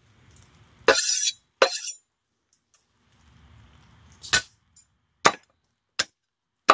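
Meat cleaver chopping through a groundhog's head onto a wooden cutting board: six sharp knocks at uneven intervals.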